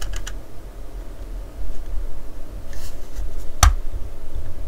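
Small plastic clicks as the clear rear-window piece of a 2020 Corvette Stingray model car kit is pressed into the model's body, with one sharp snap about three and a half seconds in.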